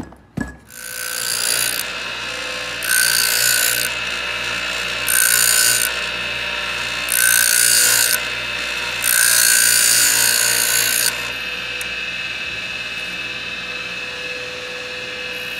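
Electric piston ring filer starting up and running steadily, with five loud hissing grinding passes as a ring end is fed against its abrasive wheel; the last and longest pass ends about eleven seconds in, and the motor runs on alone. The rings are being ground to set their end gaps.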